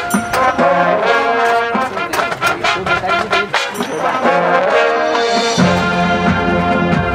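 High school marching band playing a brass-led passage with trombones prominent over percussion strikes. A heavy low part comes in about five and a half seconds in.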